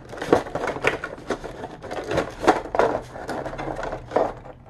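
Hands handling a paper instruction leaflet and a stiff clear-plastic blister pack, giving irregular rustling and crinkling with sharp crackles and light taps.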